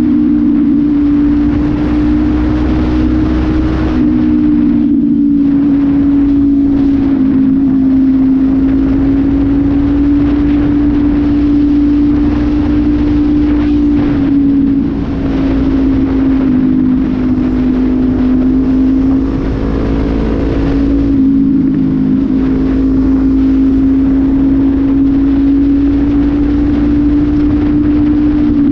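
Honda CB500F parallel-twin engine with an aftermarket sport exhaust tip and no air filter, running at a steady cruising speed on the road, its pitch drifting only slightly up and down. Low wind rumble on the microphone underneath.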